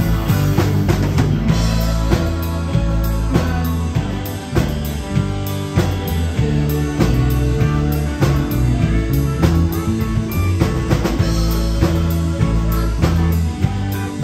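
A live rock band plays loudly: a drum kit keeps a steady beat with cymbals, over a stepping bass line and electric guitar.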